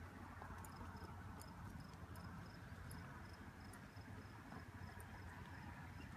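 Faint outdoor background: a steady low rumble with a series of short high chirps repeating about three times a second, stopping near the end.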